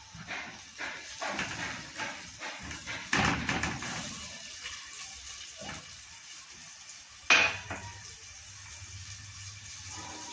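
Silicone spatula stirring and scraping chopped onion in hot ghee around an aluminium pot, a quick run of strokes over the first few seconds, then one sharp knock on the pot about seven seconds in.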